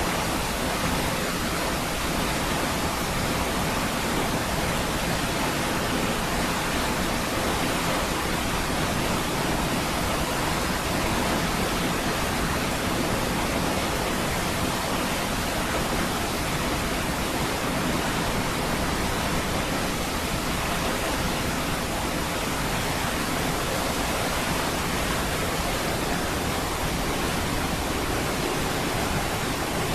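Niagara Falls: a steady, unbroken rush of falling water, even across low and high pitches with no separate splashes or changes.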